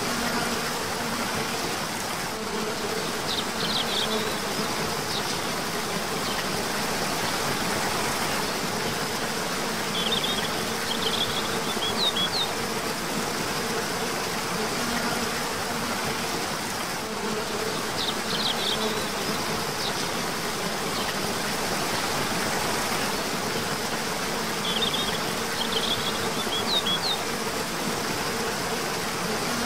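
Steady rush of water over a cascading waterfall, under a constant insect buzz. A short chirping bird call comes four times, about every seven seconds.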